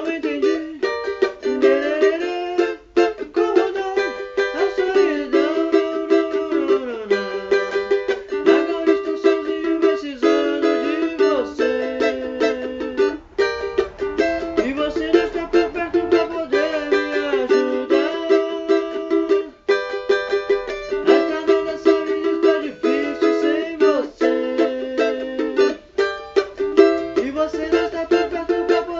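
Cavaquinho played solo: chords strummed in a quick, steady rhythm, with a few brief pauses.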